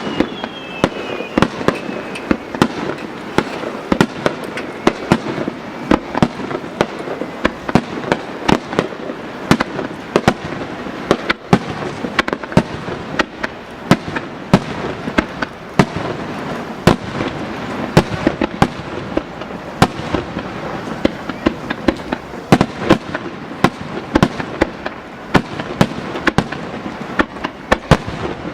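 Starmine fireworks display: a rapid-fire salvo of aerial shells bursting, with sharp bangs several times a second over a continuous crackle.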